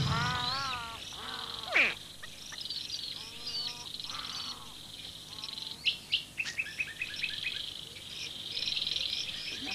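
Wild birds calling, with varied chirps and whistles and a loud downward-sliding whistle about two seconds in, over a steady high insect trill.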